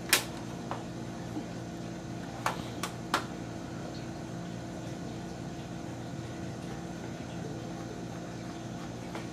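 A few light clicks and taps of a ruler and pencil on a metal PC-case motherboard tray while it is being marked out: one at the start and three close together about two and a half to three seconds in. Underneath runs a steady machine hum.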